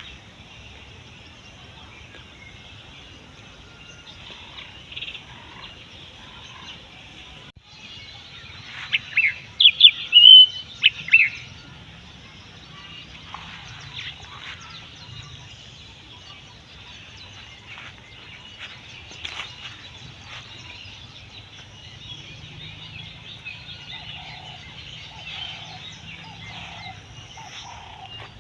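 Birds calling on a farm: a burst of loud, high, sliding calls about nine to eleven seconds in, then scattered fainter calls and a run of short lower notes repeated near the end.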